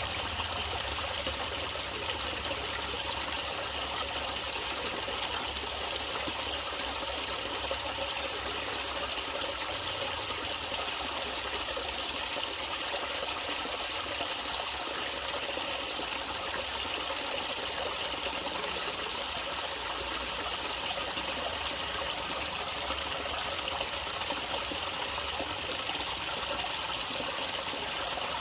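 Natural running water trickling steadily over stones, an even, unbroken rush of flowing water.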